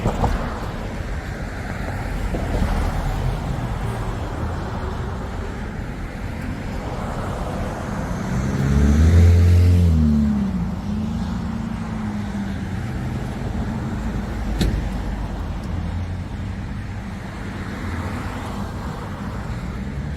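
Street traffic going by. About nine seconds in, one loud vehicle passes close, its engine note dropping in pitch as it goes by. A single short click comes a few seconds later.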